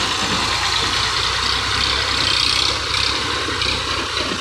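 Tractor's diesel engine running steadily while pulling a heavily loaded trolley of sacks.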